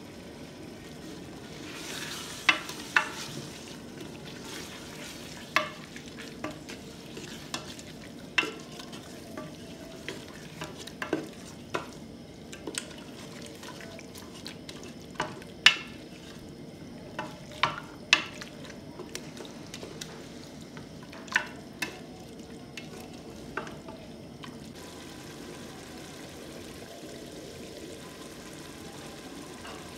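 Wooden spatula stirring beef curry in a metal pressure cooker pot, knocking and scraping against the pot at irregular intervals over a steady sizzle of the curry frying. The knocks stop near the end, leaving only the sizzle.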